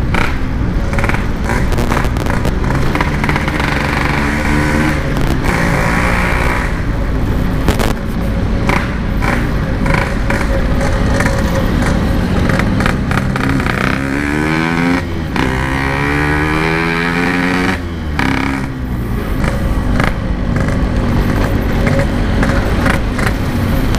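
Yamaha RX-King 135 cc two-stroke single running through an aftermarket 'standart belek' packing-power exhaust while riding, its pitch rising and dropping back repeatedly as the throttle is opened and closed.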